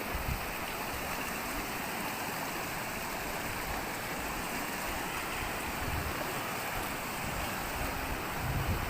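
Steady rushing of a flowing river. A couple of brief low bumps come about a third of a second in and near the end.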